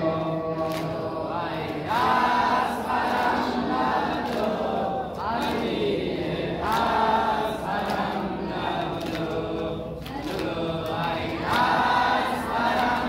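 A group of men and boys chanting a Muharram mourning lament (noha) together in long sung phrases, a new phrase starting about every four to five seconds.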